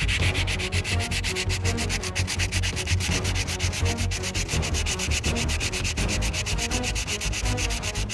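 Sandpaper rubbed over the seam line of a plastic model ship hull in quick, even back-and-forth strokes, several a second, smoothing away the join.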